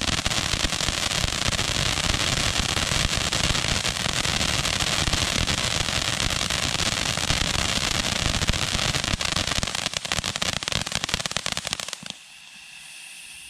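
Sky Bacon 'Blooming Glory' firework fountain spraying: a loud, steady hiss packed with rapid crackling pops. About twelve seconds in it drops suddenly to a faint hiss as the fountain burns out.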